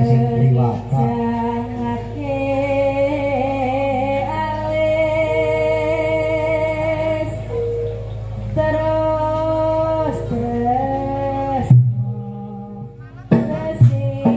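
Javanese sinden singing a wavering, ornamented melody with long held notes through a microphone, over karawitan accompaniment. The music breaks off for a moment near the end, then resumes with plucked notes.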